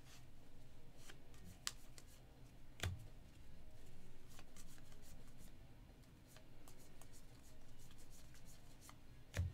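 Football trading cards being handled and shuffled through by hand, a soft rustling and sliding that comes in swells, with a few sharp clicks, the loudest near the end.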